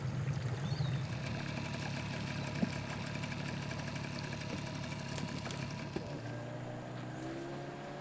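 Small boat motor on a dugout canoe running steadily at low speed, a low even hum that shifts in pitch about six seconds in.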